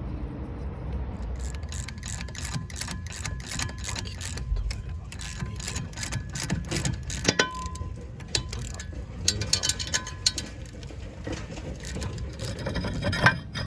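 Socket ratchet clicking in quick runs as M8 bolts are screwed into the jack-screw holes of a Mitsubishi Delica D5's seized rear brake rotor to push it off its hub, with a few louder metallic knocks.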